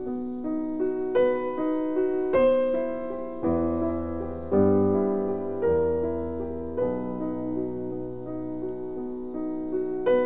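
Background music: slow, gentle piano, held chords struck and left to fade.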